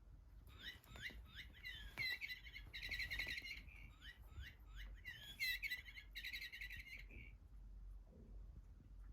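A cat's squeaky toy ball giving bird-like chirping squeaks as it is batted about, in short runs with two quick rapid-fire bursts, stopping about two seconds before the end.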